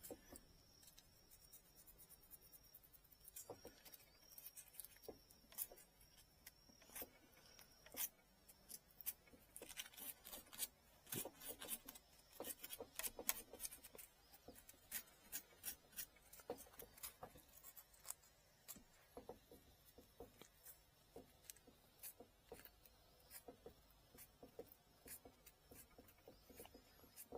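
Quiet, irregular small scrapes and clicks of a hand tool working on a bamboo fishing-rod tip, cleaning dirt out of the recess at the base of a node. The scraping is busiest in the middle of the stretch.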